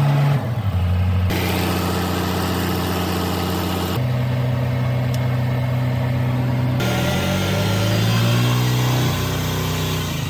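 Diesel engine of an XCMG (Xugong) 260 road roller running at raised revs, its pitch climbing at the start and changing in steps as the controls are worked, with a tone rising from about seven seconds in and falling away near the end.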